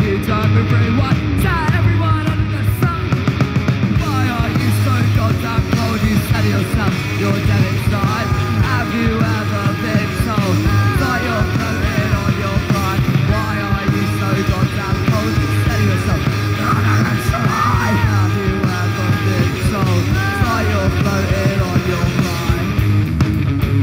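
A live punk-rock band playing loudly: electric guitars, bass and drum kit, with yelled vocals at times.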